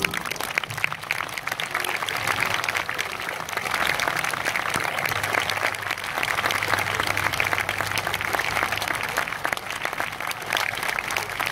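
Concert audience applauding at the end of a piece: a dense, steady clatter of many hands clapping, starting just as the harp's last chord stops.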